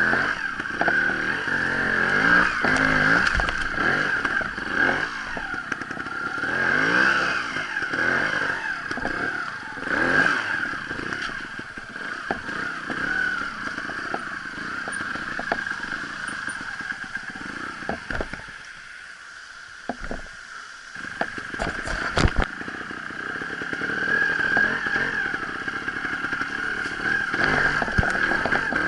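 Sherco trials motorcycle engine revving up and down in short throttle blips, with clatter and scraping of the bike over rough ground. The engine drops low for a couple of seconds past the middle, then a few sharp knocks follow and the revving resumes.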